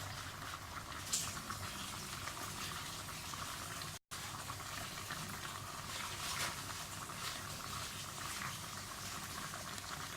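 Pot of groundnut (peanut) soup bubbling on the heat, a steady crackly simmer, briefly cut off about four seconds in.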